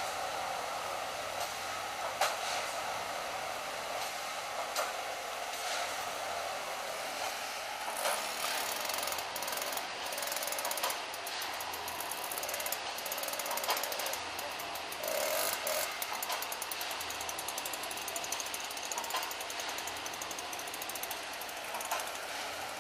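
Heavy railway track-maintenance machinery working: a steady mechanical clatter with sharp metallic knocks every second or two. At first it is a ballast tamper tamping the track, and about eight seconds in the clatter changes as the level-crossing works with an excavator take over.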